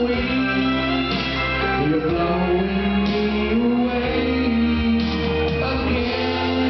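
Live country band music with guitars, playing steadily with sustained, gliding notes.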